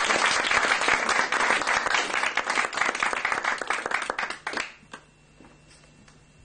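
An audience applauding, a dense patter of many hands clapping that dies away about four and a half seconds in, leaving quiet room tone.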